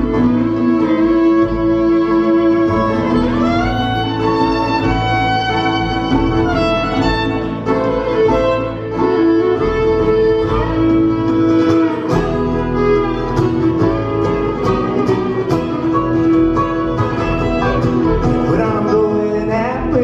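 Live bluegrass band playing, the fiddle carrying the lead with sliding notes over acoustic guitar, mandolin, banjo and upright bass.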